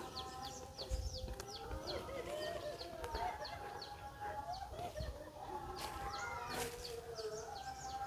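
Chickens clucking, with small birds giving many short, repeated chirps.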